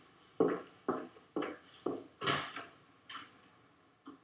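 Footsteps of a woman walking away, about two steps a second, growing fainter near the end.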